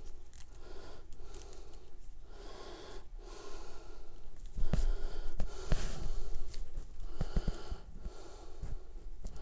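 Heavy breathing through the nose, in soft swells about once a second, with a few light clicks and rustles from a coiled flat LAN cable being handled.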